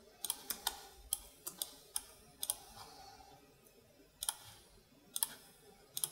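Computer mouse and keyboard clicks: about a dozen sharp, irregular clicks, with a pause of a second or so in the middle.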